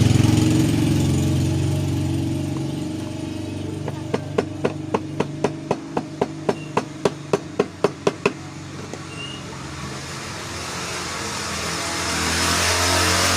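A small hammer tapping a punch in a quick even series, about seventeen light strikes at roughly four a second, staking the wire into a commutator hook on a juicer motor's armature. A steady low engine-like hum runs underneath.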